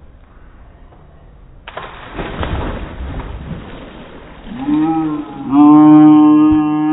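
A rushing noise starts about a second and a half in. Near the end it gives way to a person's voice in a long, steady, held low call, which is the loudest sound.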